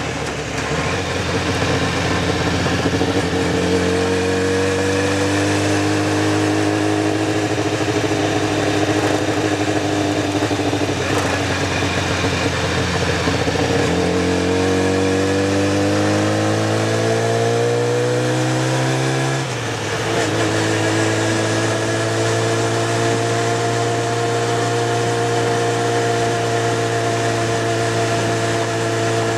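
Motorcycle engine under way, its pitch climbing as it accelerates, holding steady, then climbing again. About two-thirds of the way through it is cut briefly and drops in pitch at an upshift, then runs steadily in the higher gear. Wind and road noise run beneath it.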